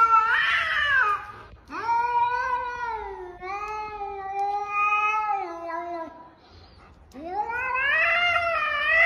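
A cat yowling in long, drawn-out threatening calls: the first ends about a second in, then comes a long, fairly level yowl of about four seconds, and after a short pause another one that rises and then falls.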